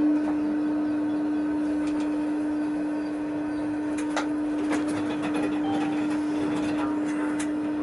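Steady, even electrical hum inside the cab of a Tatra T6A5 tram standing at a stop, with a few sharp clicks, the clearest about four seconds in and another near the end.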